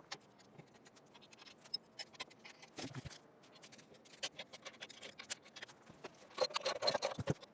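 Scattered light clicks and metal clinks of hinge hardware being handled and fitted: bolts, washers and nuts going onto a steel tube door's hinges. A quicker run of clicks comes near the end.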